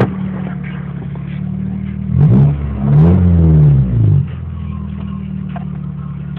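Honda B21A1 four-cylinder engine idling, then revved twice, about two seconds in, before dropping back to a steady idle. The engine has a rod knock.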